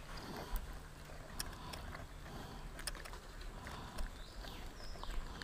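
Faint handling noise: scattered small clicks and rubbing as a caught giant river prawn is unhooked with fishing pliers and a lip-grip tool, over a low rumble of wind and handling on the microphone.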